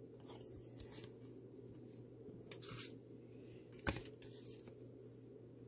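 Faint rustling and a few light clicks of clear plastic stamp packages being handled and sorted through, over a low steady hum.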